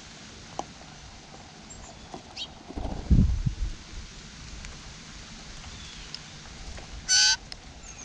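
Blue jays at a seed feeder: a loud flurry of wingbeats close by about three seconds in, as a jay flies off the tray, then one short, harsh blue jay call near the end.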